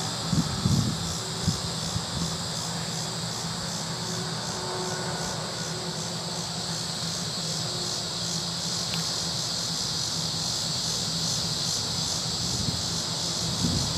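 John Deere combine harvester running steadily with a low drone, while crickets chirp in a high pulsing chorus throughout. A few low thumps come in the first couple of seconds.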